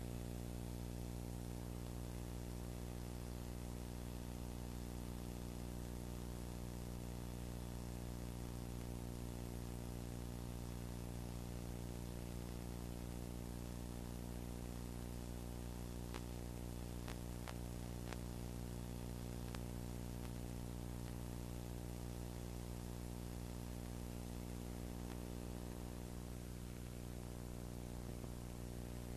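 Steady electrical hum with many overtones under a constant hiss: background noise of the recording equipment with no programme sound. A few faint clicks fall about midway.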